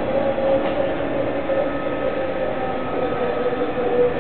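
Toy electric trains running on a layout: a steady hum of the motors and wheels rolling along the track.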